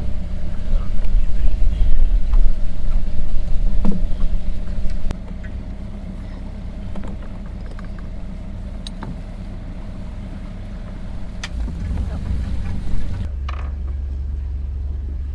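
A sailboat's inboard diesel engine running steadily while motoring at low speed. It is a low rumble, louder and more uneven for the first five seconds, then quieter and steadier.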